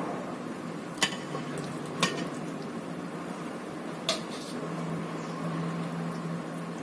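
A few light clinks of a utensil against a ceramic serving plate, about one, two and four seconds in, over a steady low hum.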